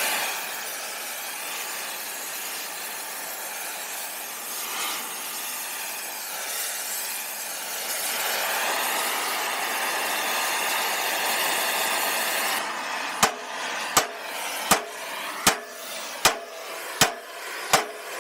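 A steady, harsh rushing noise that cuts off suddenly, then a run of sharp hammer blows about three-quarters of a second apart as a hammer strikes the generator's bent sheet-steel frame to straighten it.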